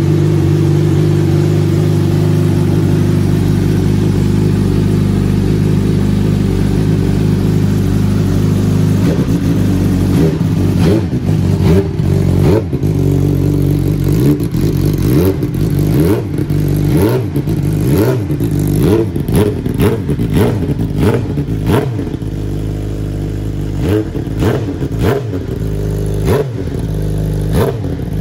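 Suzuki GSX-R1000 L9R inline-four superbike engine with a Yoshimura titanium exhaust, running at a steady speed. About nine seconds in it starts being blipped over and over, the revs rising and falling repeatedly, with sharp cracks among the blips.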